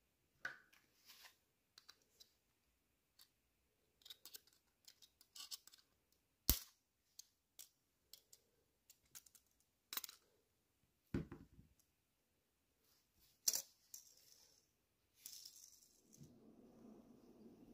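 Scattered small clicks, taps and scrapes from handling the plastic base and wheels of a diecast toy car, with three sharper clicks and one duller knock among them. A low steady rushing noise begins near the end.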